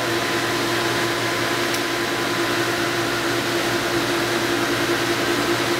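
Steady hum and hiss of reef-aquarium equipment, with a constant low tone.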